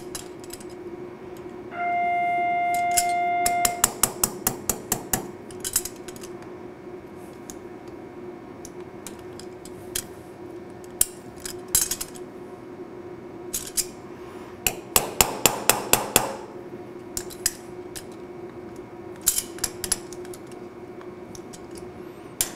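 Sharp metallic clicks and clinks of a wrench and steel parts being worked on a gearbox shaft, including a rapid run of clicks about 15 seconds in, over a steady hum. A loud steady beep lasts about two seconds, starting about two seconds in.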